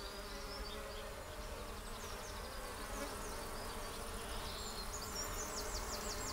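Bees buzzing steadily, with short high chirps over the buzz, most of them near the end.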